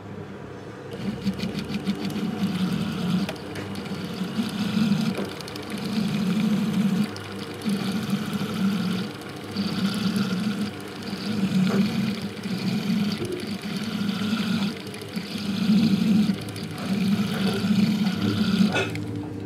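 A jeweller's power handpiece with a fine pointed tip buzzing against a ring during stone setting. It runs in short bursts of about a second each, about ten in all, with brief pauses between.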